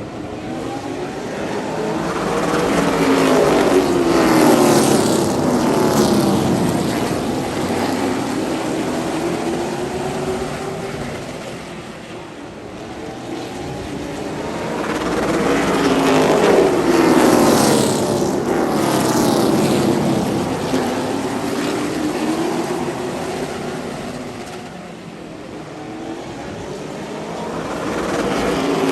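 A field of race cars lapping an oval track, their engines swelling loud as the pack passes by about every twelve to thirteen seconds and falling in pitch as it goes away.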